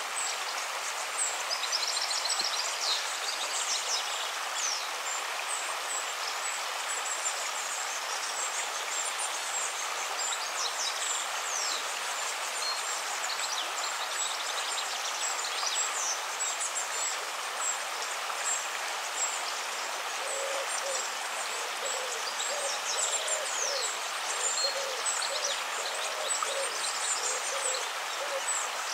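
Nature ambience of a steady watery rush with many birds chirping high above it. From about twenty seconds in, a bird gives a run of low calls, roughly two a second.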